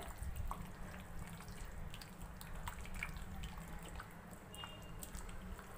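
Hands squishing raw chicken pieces through a thick yogurt-and-spice marinade in a glass bowl: faint, irregular wet squelches and small clicks over a steady low hum.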